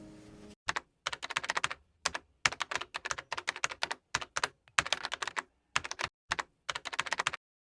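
Computer keyboard typing: quick runs of sharp keystrokes broken by short pauses, stopping about half a second before the end.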